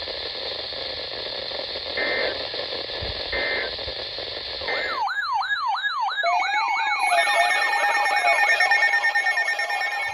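An EAS end-of-message signal: three short data-tone bursts, each a harsh buzz, over radio static. After about five seconds the static cuts off and overlapping electronic tones start, warbling up and down several times a second like an alarm.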